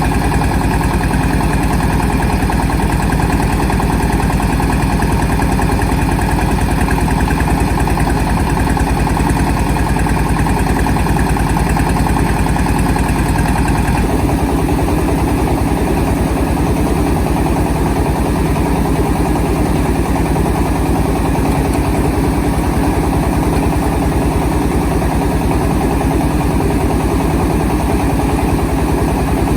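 Engine of a mobile rice-milling vehicle running steadily, with a change in its note about halfway through.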